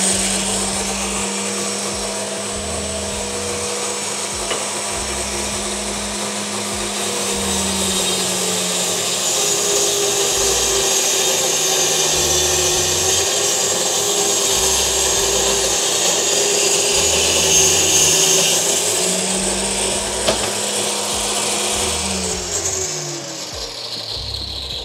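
Endico SLOK30 5-inch circular saw, mounted upside down as a table saw, running with a steady motor whine. Its pitch drops a little while it rips a thin strip off a board, comes back up once the cut is through, and winds down near the end as the motor is switched off.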